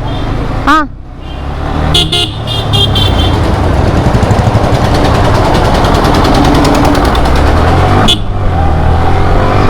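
Motorcycle pulling away and riding, its engine and rushing wind loud on the rider's microphone and growing louder as it gets under way. A brief horn beep sounds about two seconds in.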